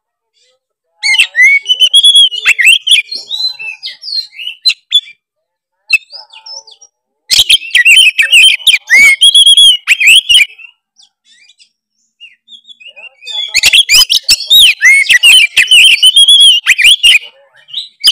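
Oriental magpie-robin (kacer) in full, vigorous song, the kind kacer keepers call 'gacor'. It sings in three bouts of quick, varied phrases with sharp clicks, separated by short pauses.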